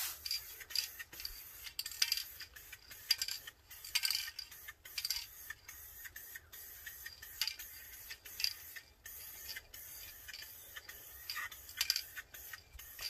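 Aerosol can of Dupli-Color graphite spray paint, fired through a clip-on trigger handle in a string of short on-off hisses as a light, tacky first coat is dusted onto a wheel.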